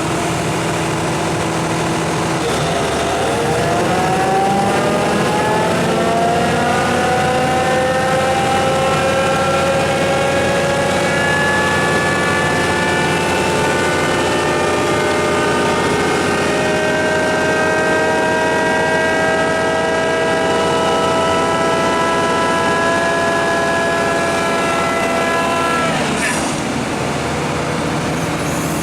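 Doosan DX140WV wheeled excavator's diesel engine and drive under way, the pitch climbing slowly as it gathers speed, then holding steady. The pitch drops sharply near the end.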